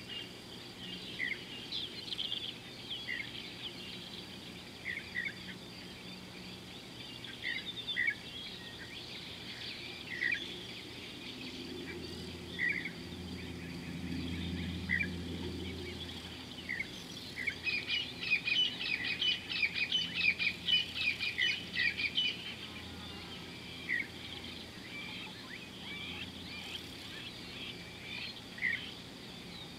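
Wild birds calling outdoors: short chirps every second or two, with a burst of rapid chattering calls from about eighteen to twenty-two seconds in.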